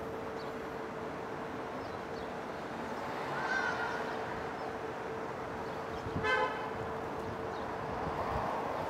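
Road traffic passing steadily, with a short car horn toot about six seconds in.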